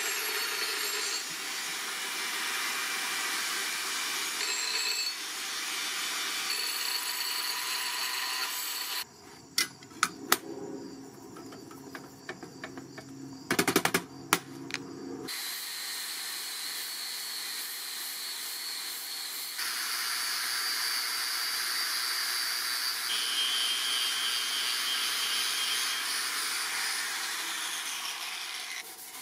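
Angle grinder with abrasive sanding and polishing discs working a steel sword blade: a steady grinding hiss with a high whine, in several stretches that change with each disc. About nine seconds in, the grinding stops for a few seconds and there are sharp metal clanks and taps, then grinding resumes.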